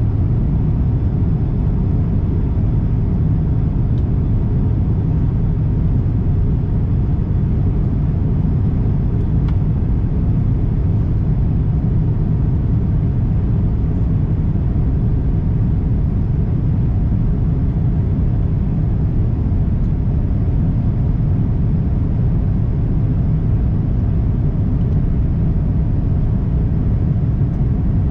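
Steady low rumble of cabin noise inside an Airbus A350-1000 in flight: its Rolls-Royce Trent XWB-97 engines and the airflow past the fuselage, heard through the cabin wall, with a faint steady hum above the rumble.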